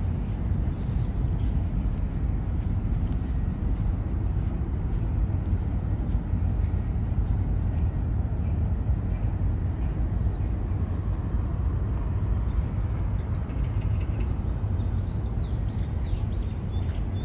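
Steady low rumble of outdoor city-park ambience, with a few faint high chirps near the end.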